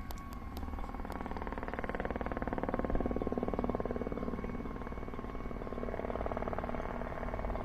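Railway level-crossing warning alarm ringing steadily, while the running noise of a passing train builds over the first few seconds and then holds.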